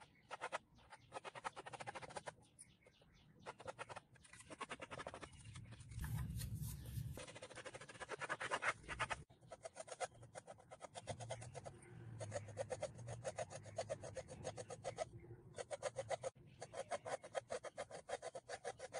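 Metal cutlery scraping and spreading thick paint across a textured canvas board: a dry, rasping scrape in quick back-and-forth strokes, broken by a few short pauses.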